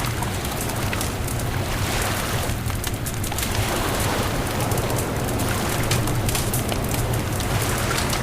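Beach bonfire crackling, with many sharp pops over a steady low rumble of wind and surf that swells now and then.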